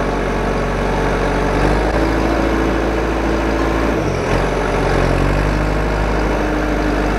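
Heavy diesel engine running steadily at low revs, its pitch stepping up about a second and a half in and dipping briefly about four seconds in.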